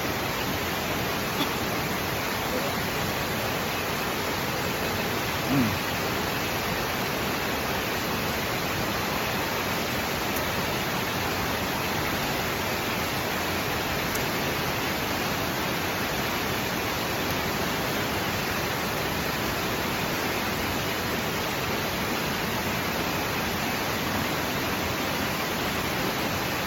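Steady, even roar of falling water from a waterfall.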